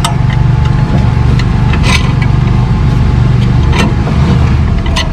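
A steady, loud, low engine drone, with a few sharp clicks of metal parts being handled.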